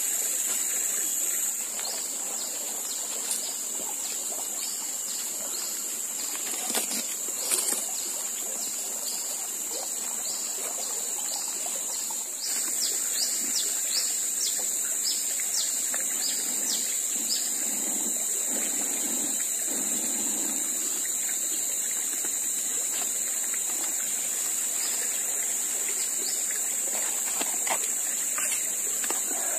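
River and forest ambience: water flowing and trickling under a steady high-pitched buzz, with short bird chirps repeating for the first half. The background changes abruptly about a second and a half in and again about twelve seconds in.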